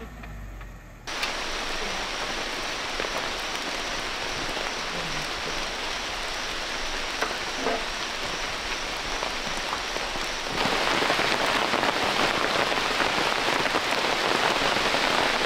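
Steady rain falling, starting abruptly about a second in and getting louder about ten seconds in.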